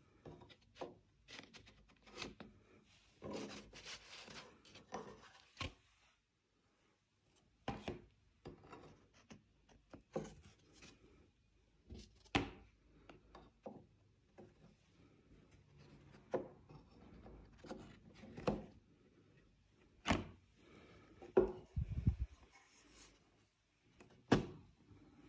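Wooden picture frames and matted photo prints being handled and set down on a hard table: faint scattered knocks and taps, with some rubbing and sliding of paper and wood.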